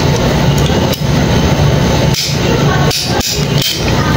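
Ratchet crimping tool clicking four times in the second half as its jaws close on a wire terminal connector, over a steady loud droning hum.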